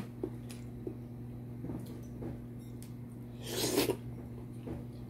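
Close-miked eating: a few soft mouth clicks while chewing beef, and a short, louder rasping rush about three and a half seconds in, over a steady low hum.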